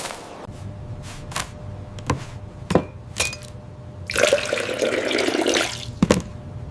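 Animated sound effects: a few light clicks and knocks, then about a second and a half of loud rushing, water-like noise, like liquid pouring or spraying, followed by another knock.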